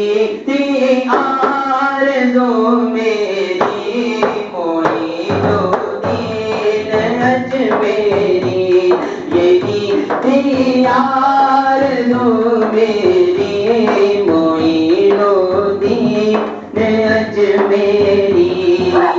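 Male voice singing a manqabat, a Sufi devotional song in praise of a saint, in long held melodic lines over a steady percussive beat.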